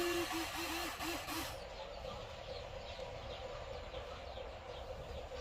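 Radio-controlled excavator's electric motors running with a steady hum, with a burst of hiss that stops about a second and a half in.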